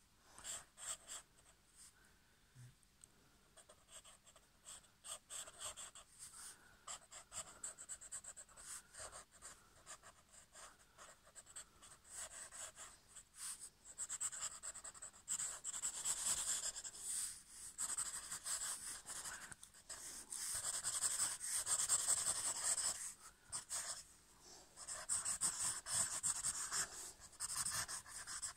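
Pen scratching across paper in quick hatching strokes. The strokes are sparse at first, then come almost without a break and louder from about halfway through, with a brief pause a few seconds before the end.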